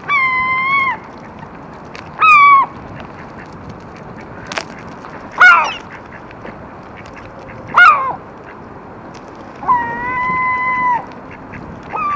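Calls from a mixed flock of gulls and Canada geese feeding: five loud calls over a steady background hiss. Two are long and level, about a second each, one at the start and one near the end; the ones between are shorter and drop sharply in pitch.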